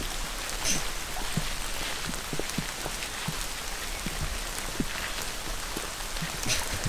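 Steady rain falling, with separate drops hitting close by at irregular moments.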